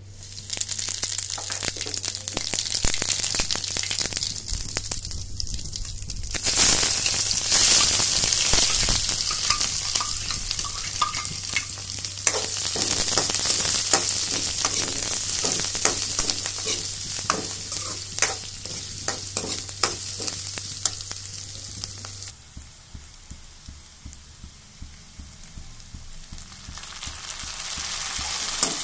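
Oil sizzling in a steel kadhai as seeds and spices and then chopped onions fry, with a spatula clicking and scraping against the pan as it stirs. The sizzle grows louder about six seconds in, falls away to scattered taps after about twenty-two seconds, and picks up again near the end.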